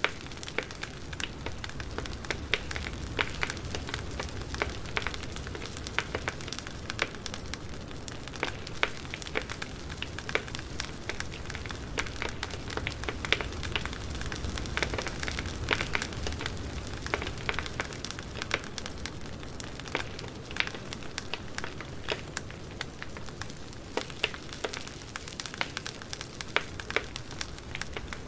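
Campfire burning steadily with frequent sharp pops and crackles over a soft hiss and a low rumble of the flames.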